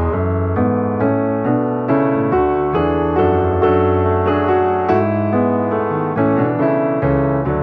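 Background piano music, a gentle melody of notes played one after another.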